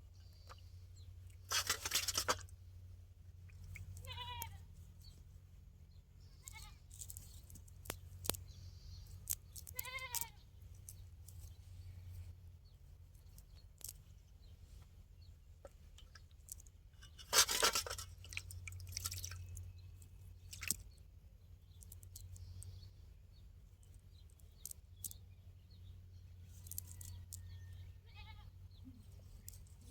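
A goat bleating twice, short wavering calls about six seconds apart. Two louder noisy bursts come between them, one near the start and one past the middle, over a low steady hum.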